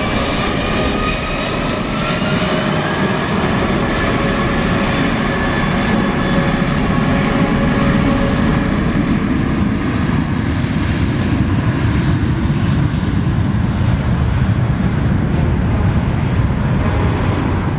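Airbus A320's twin IAE V2500 turbofans spooling up to takeoff power: a whine rises in pitch over the first couple of seconds, then a loud, steady jet roar as the airliner starts its takeoff roll. The high hiss falls away after about eight seconds as the engine exhausts point away.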